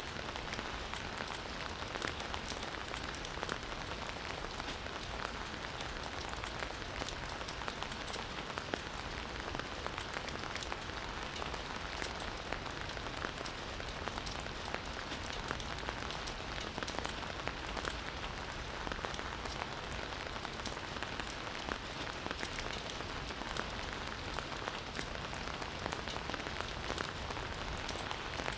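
Campfire burning with a steady hiss and frequent small irregular crackles and pops of burning wood.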